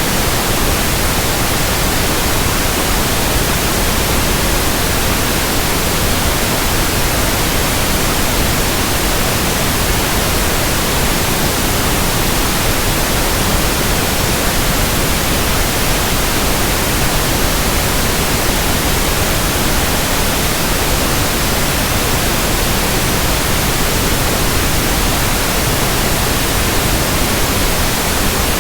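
Steady pink noise: an even, unchanging hiss spread across all pitches, as used for tinnitus sound matching and masking.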